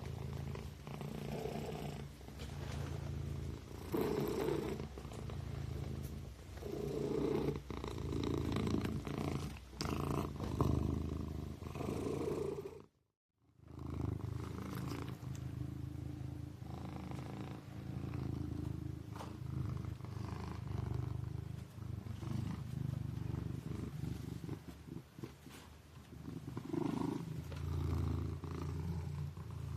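Kitten purring steadily, a low rumble that swells and eases with its breathing. It cuts out completely for under a second about thirteen seconds in, then resumes.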